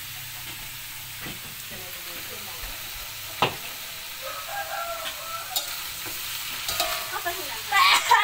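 Chicken pieces sizzling as they fry in a large aluminium wok over a gas burner, with a metal spatula scraping and clacking against the wok as the chicken is stirred. A single sharp clack comes about three and a half seconds in, and the stirring grows louder and busier near the end.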